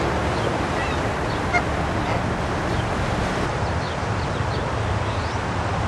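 Canada goose goslings peeping, many faint short high notes over a steady rushing background noise, with one short, louder, pitched goose call about a second and a half in.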